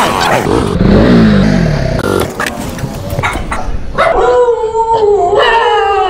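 Motorcycle engine dropping in pitch as the bike slows, a few clicks and knocks, then from about four seconds in a dog howling in long, wavering calls.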